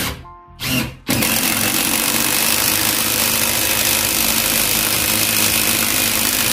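Bosch GDR 18V-200 C cordless impact driver sinking a 150 mm screw into stacked wood. Two short trigger blips are followed by about five seconds of steady rapid hammering, which stops abruptly as the screw seats.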